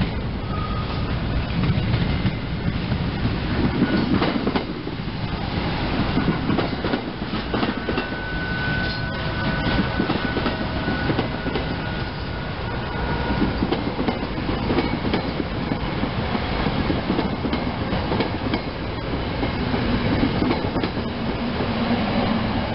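SEPTA Silverliner electric multiple-unit commuter train passing close by, its wheels clicking over rail joints and switch work under a steady rumble. A thin high whine is heard for several seconds in the middle.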